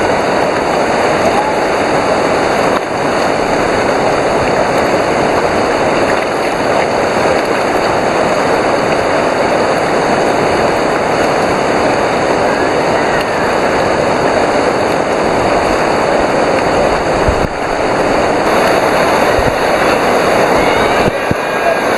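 Steady, loud rush of whitewater river rapids.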